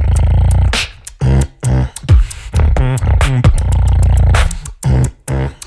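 Solo beatboxing: deep held bass notes broken by kick-drum strikes and sharp hi-hat clicks, with a warbling, wavering tone about three seconds in.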